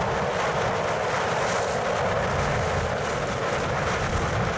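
Steady wind noise on the microphone over a low rumble, with no distinct events.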